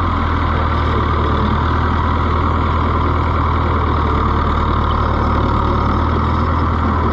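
Oliver 1365 compact tractor's diesel engine running at a steady speed as the tractor is driven, with no clunks or bangs.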